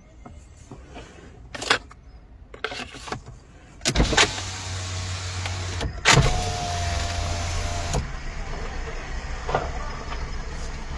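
A car's electric window motor runs twice in a row, about two seconds each, starting about four seconds in, with a steady low hum. A few short clicks come before it.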